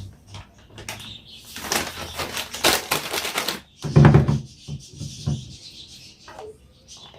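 Household objects being handled: a stretch of rustling, then a solid thump about four seconds in, followed by a few lighter knocks.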